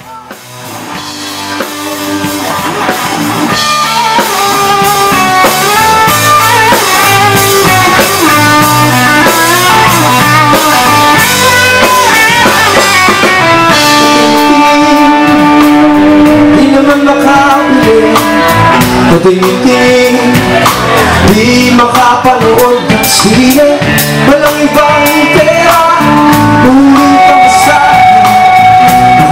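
Live rock band playing with drum kit, guitars and a male lead singer, fading in over the first few seconds.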